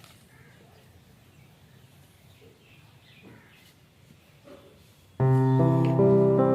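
Near silence with a few faint soft sounds, then keyboard music comes in suddenly about five seconds in, with several held notes changing in steps.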